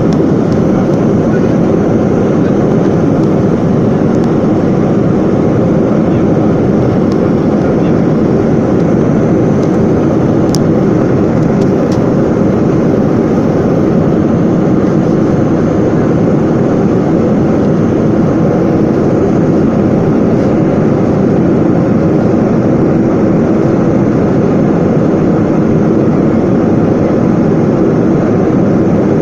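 Airplane engines during takeoff: a loud, steady noise that holds even, with no change in pitch.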